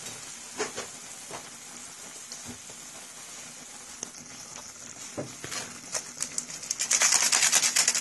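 Pot of instant jjajang noodles (Jjapagetti) boiling on a gas burner: a steady hiss with occasional pops, then louder rapid crackling over the last couple of seconds.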